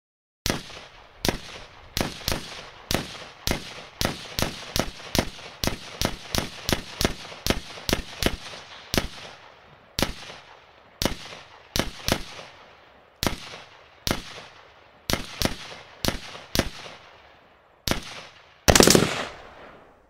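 Gunshots, fired one at a time at an irregular pace of one to three a second, each with a short decaying tail. Near the end comes a louder, denser blast lasting about a second.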